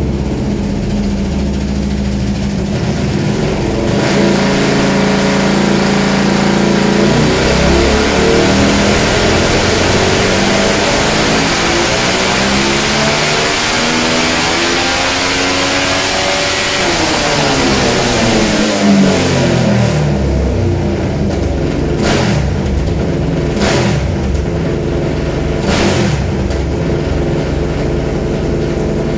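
Ducati Panigale 1199 V-twin engine, odd-firing, in a buggy on a chassis dyno, idling and then revved in a steady climb to high rpm under load, with a rising hiss under it. The engine note peaks, falls back to idle, and is followed by three short sharp bursts over the idle near the end.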